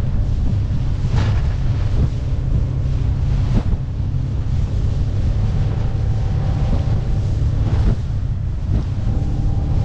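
Heavy wind buffeting the microphone on a small open boat running through choppy sea, with water slapping and splashing against the hull a few times. The Suzuki 50 hp four-stroke outboard runs faintly underneath.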